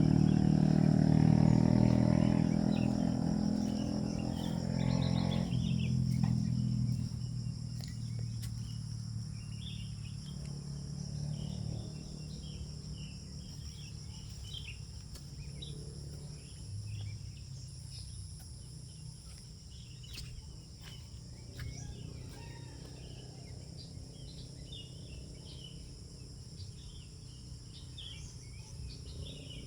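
A motor vehicle's engine hum fades away over the first several seconds. Then comes forest ambience: scattered short bird chirps over a steady high insect drone.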